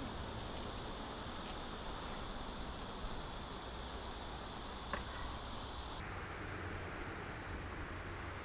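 Steady outdoor ambience: a high insect drone over a low hiss and rumble, with one faint click about five seconds in.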